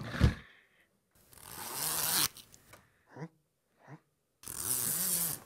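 A zipper pulled quickly back and forth, giving two long rasping strokes about three seconds apart with faint short scrapes between them.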